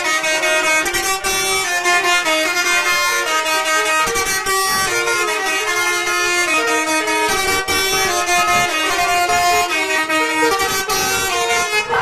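Bus telolet horn playing a melody: a multi-note air horn sounding a continuous run of short notes that step up and down in pitch.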